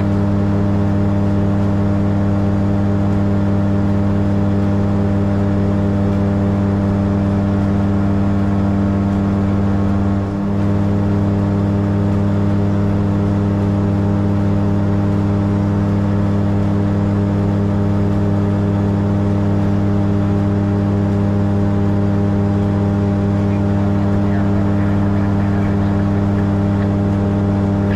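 Light aircraft's engine and propeller running steadily in cruise, heard inside the cockpit of a Titan Tornado. The level dips briefly about ten seconds in.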